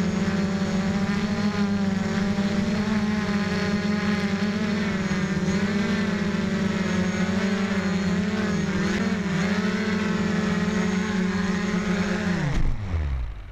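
Small motor of a camera-carrying radio-controlled model running steadily with a slightly wavering pitch, then winding down quickly and stopping near the end.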